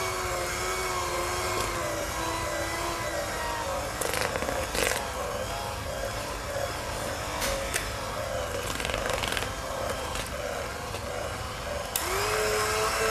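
Electric hand mixer beating stiff spätzle dough, its motor whirring steadily, with a few knocks in the middle. About a second before the end the motor's pitch rises sharply.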